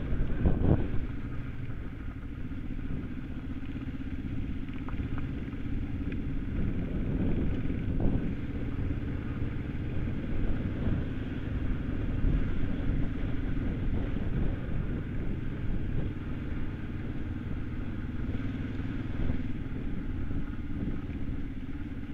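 Kawasaki KLE 500 parallel-twin dual-sport motorcycle engine running steadily under the rider while riding a rough gravel track, with a couple of short knocks about a second in and again around eight seconds.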